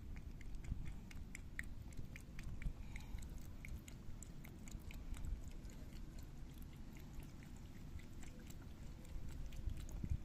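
Cat lapping milk from a shallow dish: quick, uneven little wet clicks, over a steady low rumble.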